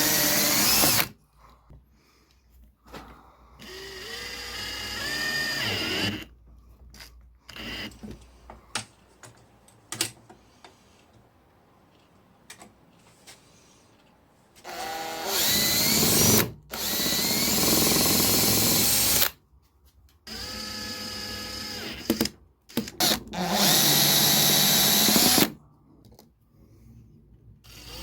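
Electric drill running in several short bursts of one to three seconds, its pitch rising as it spins up at the start of each run, with small clicks and knocks of handling in the pauses between.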